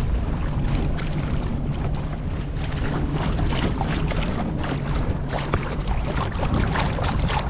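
Mercury 8 hp two-stroke outboard motor running steadily, pushing an inflatable boat along, with wind buffeting the microphone.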